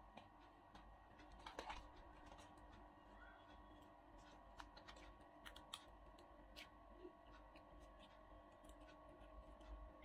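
Near silence with faint, scattered small clicks and crinkles: a plastic sauce sachet being handled and torn open, and bites of crunchy fried popcorn chicken. A low steady room hum runs underneath.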